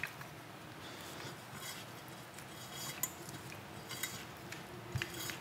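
Faint rubbing and scraping of a wiring harness being pushed and pulled through a metal motorcycle handlebar tube, with a few light metallic clicks.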